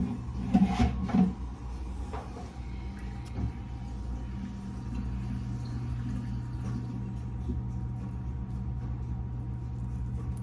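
Steady low hum with a few faint rustles and light knocks over it.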